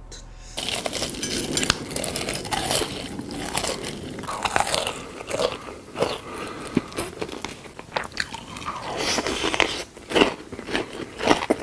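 Close-miked eating sounds: crisp crunching bites and chewing, starting suddenly about half a second in and carrying on densely.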